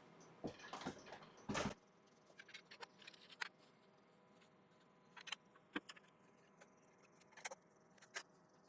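Scattered knocks and clicks of a wooden bowl being handled and refitted on a wood lathe, the loudest a short thump about one and a half seconds in.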